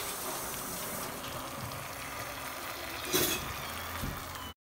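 Eggs frying in a hot pan: a steady sizzle, with a brief louder crackle about three seconds in. The sound cuts off suddenly near the end.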